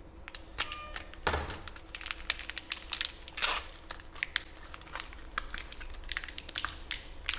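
Irregular crinkling, crackling and clicking of plastic packaging being handled.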